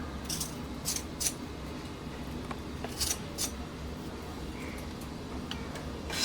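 A knife scraping the bark off a fresh giloy stem: short scraping strokes, three in the first second and a half and two more about three seconds in, over a faint low hum.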